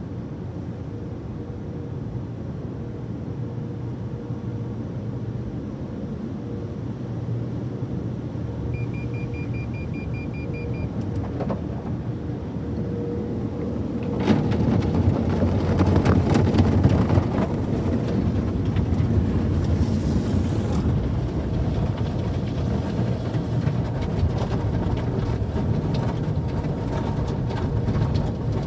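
Automatic tunnel car wash heard from inside the car: a steady machinery rumble, then about halfway in the louder swishing and slapping of spinning cloth brush strips scrubbing across the windshield and body. A short run of quick beeps sounds about a third of the way in.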